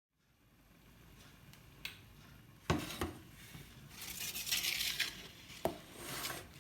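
Kitchen clatter of dishes and utensils being handled: a few sharp knocks, with a second of hissing noise in the middle and a shorter one near the end.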